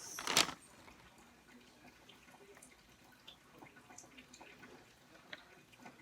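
Faint, irregular light ticks and scratching of a colored pencil on paper, with one sharper click about half a second in.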